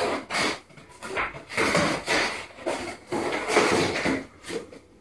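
Large ceramic floor tiles being picked up and handled: a run of irregular short scraping and sliding noises.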